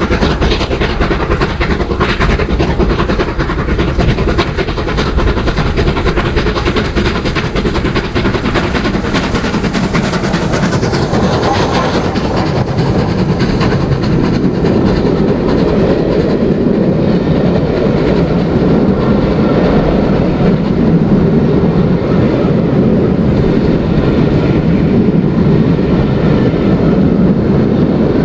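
A train passing close by, its wheels clattering rapidly over the rail joints. About halfway through the clatter eases and the sharper sounds fade, leaving a steady low rumble.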